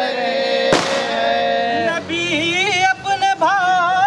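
A group of men singing a devotional song in praise of Ali together, with long held notes that waver in pitch. A single sharp crack sounds about three-quarters of a second in.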